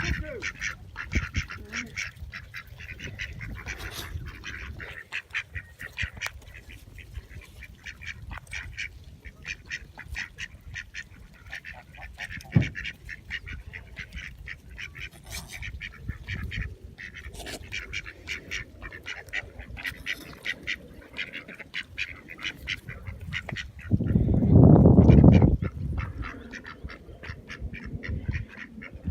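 A swan honking over and over in quick, short repeated calls. About 24 seconds in, a loud low rumble lasts about a second and a half.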